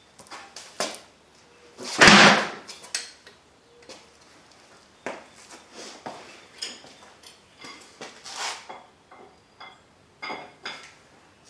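Scattered knocks and light metallic clanks of garage work, with one loud thump about two seconds in as a car tire is dropped onto the concrete floor.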